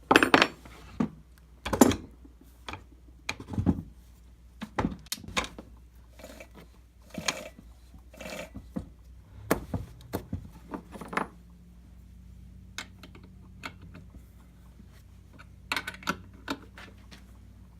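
Irregular clinks, knocks and rattles of chainsaw parts and hand tools being handled, loudest in the first two seconds and thinning out after about eleven seconds.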